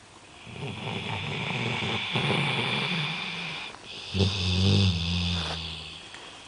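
A 13-year-old golden retriever snoring in deep sleep: two long, rasping snoring breaths, the second lower-pitched and louder.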